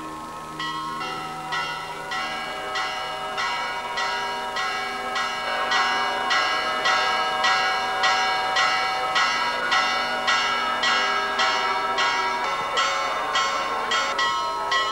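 Church bells ringing a quick, even festive peal of about two and a half strokes a second, their ringing overlapping into a continuous hum. The peal grows louder over the first few seconds.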